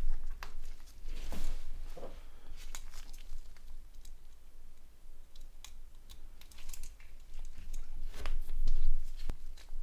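Irregular light clicks and scratchy rubbing from a mobile phone's main board being handled and cleaned by hand, loudest near the end.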